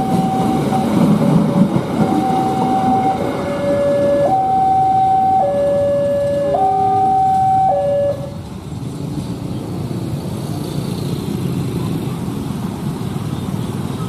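A railway level-crossing warning signal sounds a high–low two-note tone, about a second per note, over the low rumble of the passing train. It stops about eight seconds in as the train clears the crossing, leaving motorbike traffic noise.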